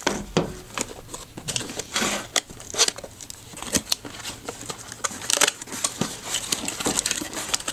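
Cardboard box being opened by hand: irregular rustling, scraping and tapping as the lid flap is lifted and the inner cardboard tray is slid out.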